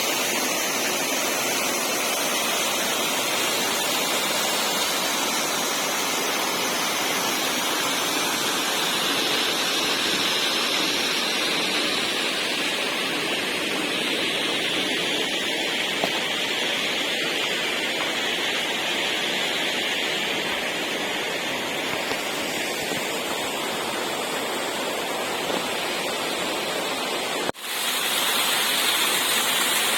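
Waterfall pouring steadily, a constant rush of water, with a brief break near the end where the recording cuts before it carries on.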